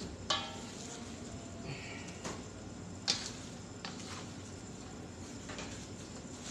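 Plastic dough scraper working risen bread dough in a stainless steel bowl: scraping and a few sharp knocks of the scraper and hands against the bowl, the first with a brief metallic ring.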